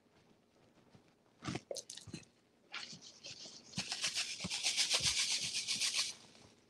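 Clear plastic bag of dry-rub seasoning crinkling as it is handled over a sirloin roast, with a few scattered crackles first. Then about two seconds of fast, rattling hiss as the seasoning is shaken out of the bag onto the meat.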